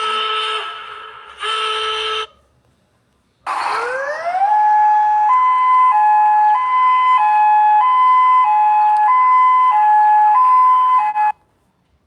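Electronic alert tones: a held chord of steady tones that stops about two seconds in, then after a short silence a tone sweeps up into a two-tone hi-lo siren, switching between two pitches about every half second, which cuts off suddenly near the end.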